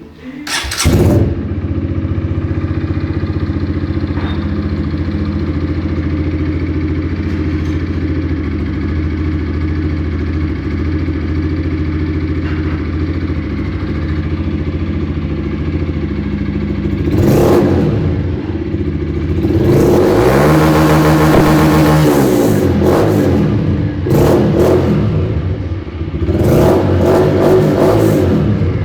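Honda CG 150 Fan motorcycle's air-cooled single-cylinder four-stroke engine idling steadily, then revved up and back down several times, with the longest rev about two-thirds of the way through.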